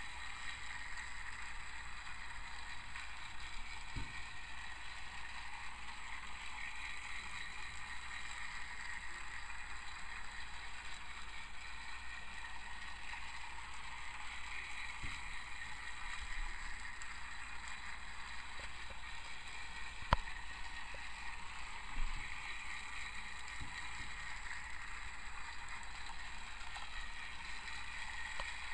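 Battery-powered TrackMaster toy train engine (Raul) running on plastic track, a steady motorized whir with its wheels clattering along the track pieces. A sharp click about two-thirds of the way through, and a smaller knock shortly after.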